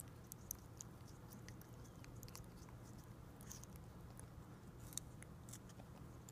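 African grey parrot eating strawberry: faint, scattered wet clicks and smacks of its beak and tongue, with a sharper click about half a second in and another near five seconds.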